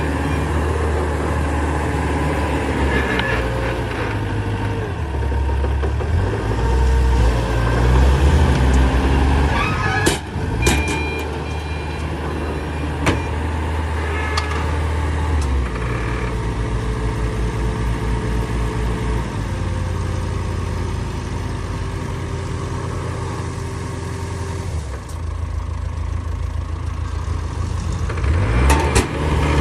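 Heavy diesel engine of earth-moving equipment running, its speed shifting up and down several times under changing load, with a few sharp metallic clanks about a third of the way in and again near the end.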